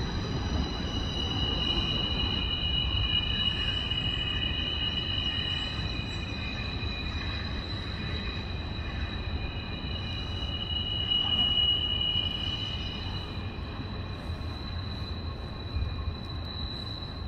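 Double-stack intermodal freight train rolling around a tight curve: a steady low rumble of wheels on rail, with high-pitched wheel flange squeal that swells and fades twice.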